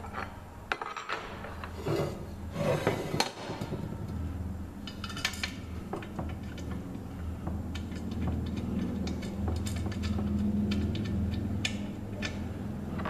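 Metal clinking and clanking of bolts, washers and a wrench being handled against the drill press's metal parts during assembly, with scattered sharp clicks and knocks over a steady low hum.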